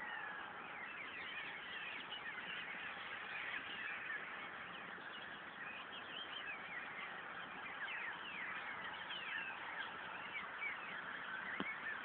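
A flock of small birds twittering: many short chirps overlapping without pause, with one sharp click near the end.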